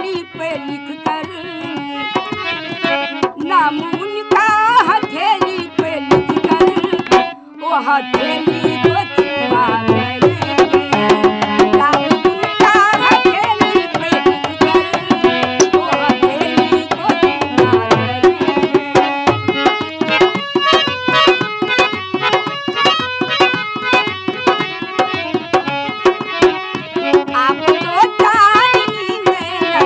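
Dholak, a two-headed barrel drum, played by hand in a fast, steady rhythm, accompanying an elderly woman singing a folk song in long held notes. Both stop briefly about seven seconds in, then carry on.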